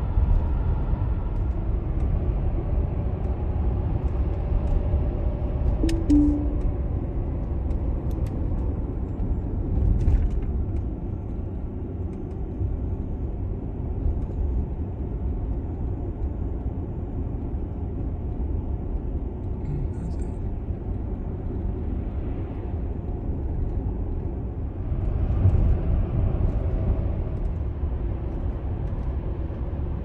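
Steady road and tyre noise inside a moving car's cabin, a low rumble throughout, with a few faint clicks and a brief low tone about six seconds in.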